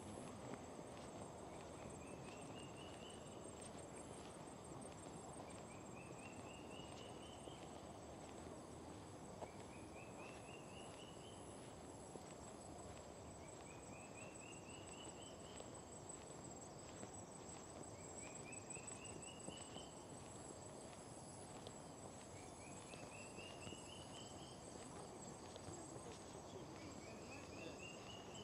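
Faint insect chorus: a steady high-pitched pulsing trill, with a short rising call repeated about every two seconds over a low even hiss.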